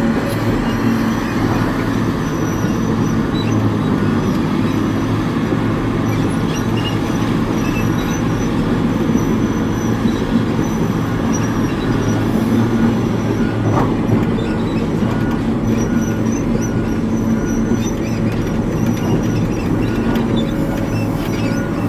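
Hitachi 890 excavator's diesel engine running steadily at high load, with thin high whining tones over it from the working machine.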